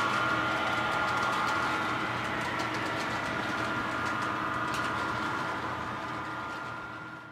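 HO scale model trains running on the layout: a steady electric motor whine and hum with light clicking of the wheels over the track, fading out near the end.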